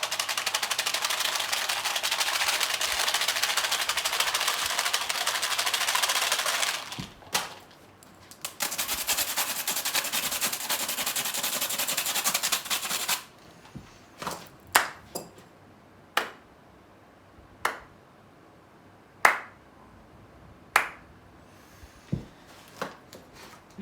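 Hand-held clapper percussion ("clappy things") rattled fast, giving two long runs of dense clicking that break off about 7 s and 13 s in. It is then struck in single sharp claps, spaced one to two seconds apart.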